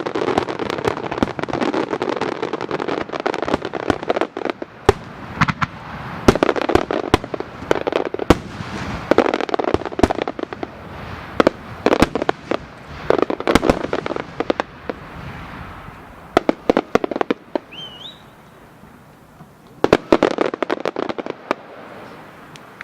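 Aerial fireworks display of Japanese chrysanthemum (kiku) shells: many sharp bursts over a continuous crackling rush. The bursts come thick and fast at first, thin out past the middle, and end with a last cluster of bangs near the end.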